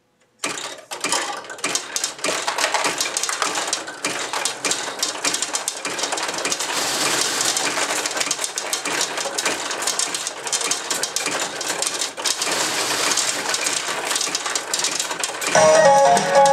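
Pachinko machine in play: a dense, continuous clatter of small steel balls rattling through the machine, starting suddenly about half a second in. Near the end the machine's music starts up over it.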